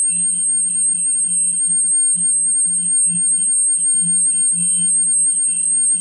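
A steady, high-pitched electronic whine over a low hum that swells and dips unevenly several times a second, with fainter mid-pitched tones coming and going.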